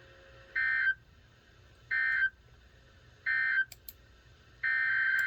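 Emergency Alert System SAME digital data bursts: three short, identical buzzy bursts about a second and a half apart, the end-of-message code that closes the severe thunderstorm warning. Near the end a longer burst begins, the header of the next alert, a tornado warning.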